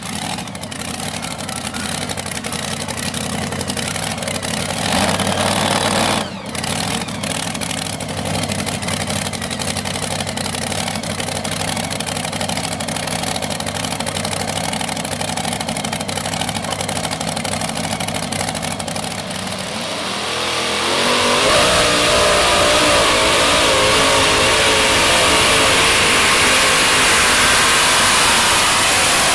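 A modified two-wheel-drive pulling truck's engine running steadily at low throttle after its pull. About twenty seconds in, a louder modified pulling truck takes over, its engine at full throttle under load as it drags the weight sled, with the pitch wavering as the revs rise and fall.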